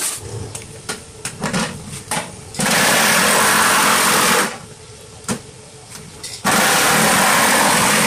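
Electric jigsaw cutting into a polycarbonate 5-gallon water bottle, run in two bursts of about two seconds each. A few short knocks and taps come before and between the bursts.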